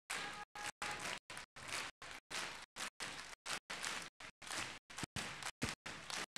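Theatre audience and performers applauding, faint, with the sound repeatedly cutting out to silence several times a second.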